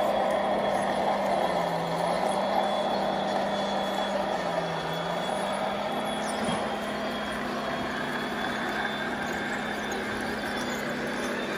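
Radio-controlled model trucks running, a steady mechanical hum whose pitch dips and rises again a few times.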